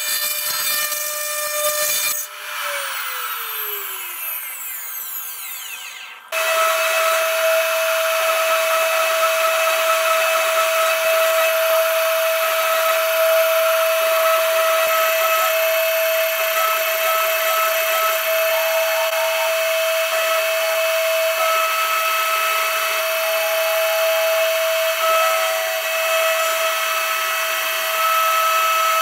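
A home-made CNC machine's spindle whines steadily as a small cutter mills and engraves an aluminium plate, with a second, higher tone coming and going. About two seconds in the sound drops and falls in pitch, then comes back suddenly a few seconds later.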